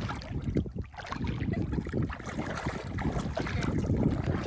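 Wind buffeting the microphone in an irregular low rumble that rises and falls in gusts.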